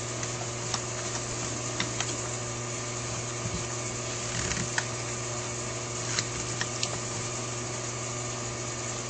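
Scattered light clicks and taps of small metal carburetor parts and a screwdriver being handled as the air-horn screws of a Holley 4000 carburetor are started, over a steady background hum.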